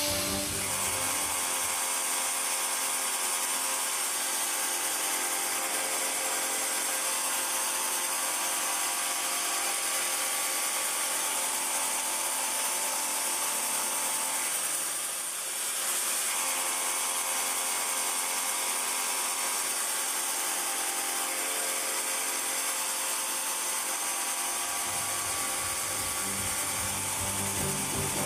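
Dijet Mirror Radius MRN modular-head end mill (φ32) on a 250 mm overhang, dry side-finish milling S50C steel at 2,650 rpm. A steady, high machining whine of many ringing tones over hiss, dipping briefly about halfway through.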